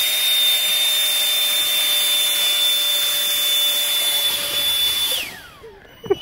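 Electric ducted fan in an RC rock crawler's chassis running at full speed, about 15,000 rpm, blowing downforce onto the rock: a loud, steady high whine over rushing air. About five seconds in it winds down, the pitch falling away.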